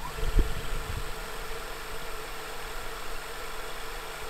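Panasonic NV-HD635 VHS recorder's tape transport running in high-speed forward wind, its head drum, capstan and reels making a steady mechanical hum. A low thump about half a second in, as the mechanism shifts into the wind.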